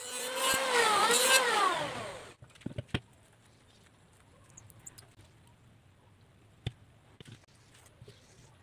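Electric hand planer running and shaving wood, its motor whine dipping and rising in pitch, cut off abruptly after about two seconds. Then a few light knocks of wooden boards being set down on the bench.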